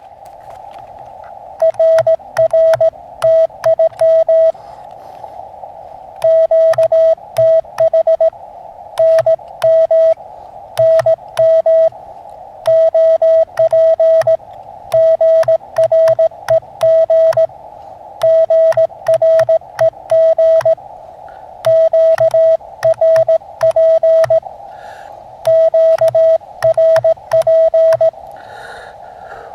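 Morse code (CW) from an Elecraft KX2 QRP transceiver: one steady tone keyed in quick groups of dots and dashes, with short pauses between the groups. A narrow band of receiver hiss fills the gaps between characters.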